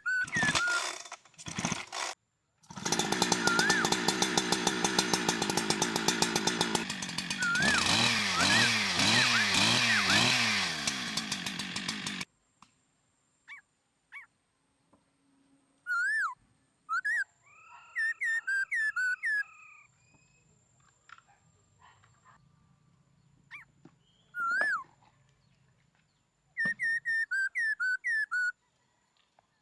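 Restored two-stroke chainsaw started and run: it idles steadily, then is revved up and down several times before cutting off suddenly. Short chirping calls follow in the quiet.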